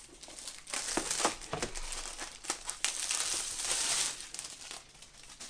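Plastic wrap being pulled off a product box, crinkling with many small crackles, dying away near the end.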